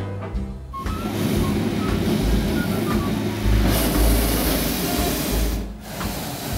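Hot-air balloon's propane burner firing: a loud, steady roar that breaks off for a moment near the end, with music faint beneath it.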